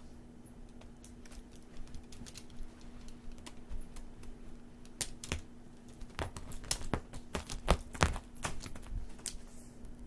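Irregular light clicks and taps from a cat batting at a plastic wand toy, thickest about halfway through, with two sharp louder clicks near the end. A steady low hum runs underneath.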